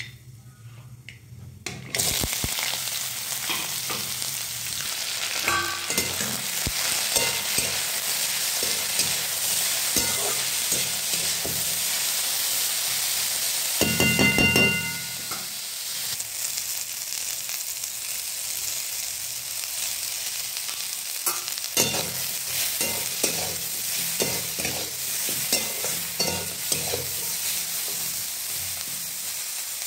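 Chopped vegetables frying in hot oil in a kadai, sizzling steadily while being stirred, with small clicks and scrapes of the stirring. It is quieter for the first two seconds, then the sizzle turns loud and stays steady, with a brief louder patch about halfway through.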